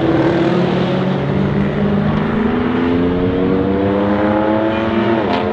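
BMW M4 F82's twin-turbo straight-six through an Akrapovic titanium exhaust, accelerating hard: the engine note rises steadily for about five seconds, then drops sharply near the end as it shifts up, with a short crack at the shift.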